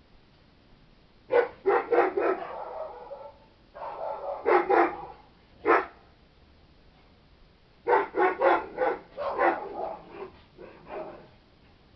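A dog barking in three bouts of quick barks: one starting about a second and a half in, one from about four to six seconds, and a longer run from about eight to eleven seconds.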